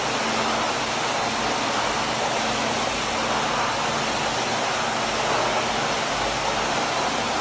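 Water rushing steadily in a jetted bathtub, with a faint steady hum under it.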